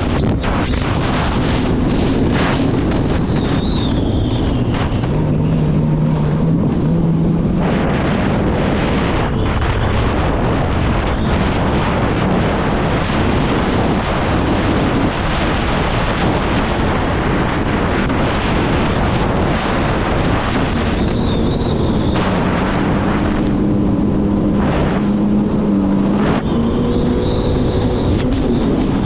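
Jet ski engine running at speed, its pitch shifting up and down with the throttle, under heavy wind on the microphone. A high whine comes and goes, near the start and again in the last third.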